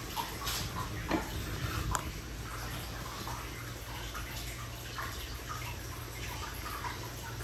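Water trickling and dripping into a filled iron goemon-buro bathtub, a steady patter with a couple of sharper drips about one and two seconds in.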